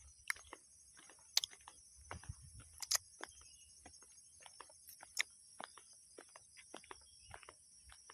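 Steady high-pitched insect chorus, such as cicadas or crickets, with irregular clicks and crunches like footsteps on dry ground.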